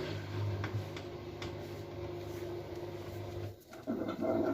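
Hisense PureJet Steam 10 kg washing machine running its drum motor for the final spin, a steady low hum with a steady higher tone. It cuts off about three and a half seconds in and starts again half a second later with a higher tone.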